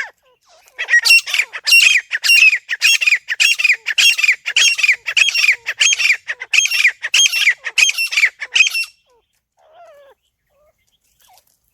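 Grey francolin (teetar) calling: a fast series of loud, shrill repeated notes, about two a second, that stops about nine seconds in, followed by a few faint calls.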